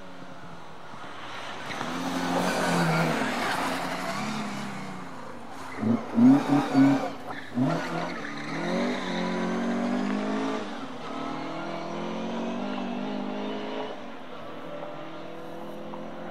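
Rally car engines taking a chicane's double turn. The engines build up as they approach, give a quick run of sharp revving blips about six seconds in, then climb in pitch as they accelerate out and fade somewhat near the end.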